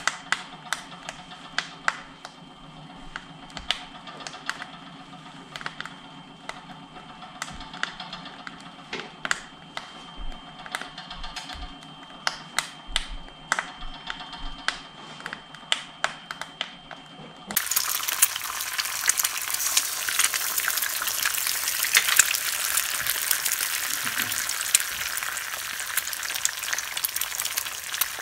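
Wood burning in a wood stove, crackling and popping with irregular sharp snaps over a low steady hum. About seventeen seconds in it cuts abruptly to eggs sizzling loudly in a frying pan.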